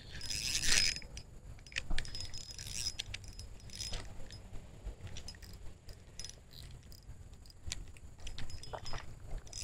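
Fishing reel being worked during a fight with a hooked hampala: a brief noisy rush about half a second in, then irregular clicks and rattles from the reel and tackle.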